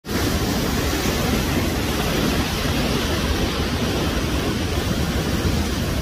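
Steady rush of the Ouzoud waterfall's falling water heard close up, filling every pitch evenly, starting abruptly at a cut.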